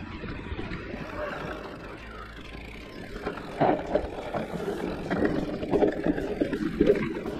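Giant Reign E+ electric mountain bike riding down a dirt forest singletrack: steady rolling noise from the tyres and bike, with frequent knocks and rattles over bumps, louder from about three and a half seconds in.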